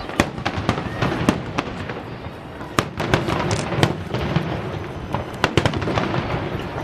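Fireworks finale barrage: a dense, continuous rattle of many sharp bangs and crackles, with a few louder cracks standing out above the rest.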